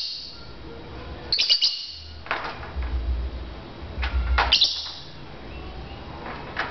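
Lovebird giving sharp, high-pitched chirps in four short bursts, each a quick cluster of calls.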